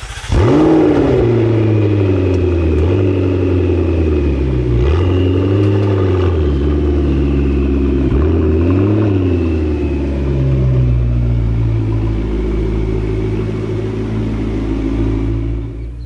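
McLaren twin-turbo V8 starting up with a sudden flare of revs, then settling into a fast idle that slowly drops in pitch. The throttle is blipped lightly twice, about five and nine seconds in.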